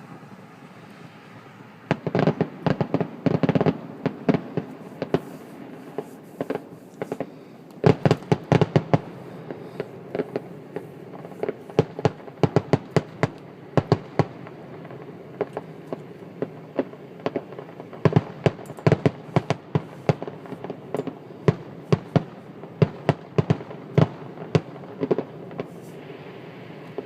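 Fireworks going off in many sharp cracks and pops, coming in quick clusters with short gaps: a dense volley about two seconds in, another near eight seconds, and scattered bursts through the rest.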